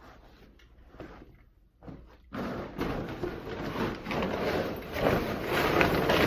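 Tarp rustling and scraping as the empty 40-gallon water heater is grabbed and shifted, starting suddenly about two seconds in and going on loud and uneven.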